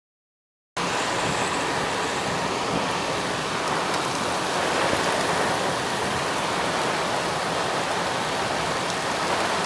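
Steady rushing storm wind, cutting in abruptly out of silence about a second in and holding at an even level.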